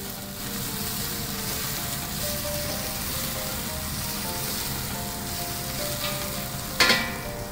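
Garlic slices and julienned ginger sizzling steadily in hot oil in a stainless steel pot as they are stirred with a wooden spoon. A single sharp knock comes near the end.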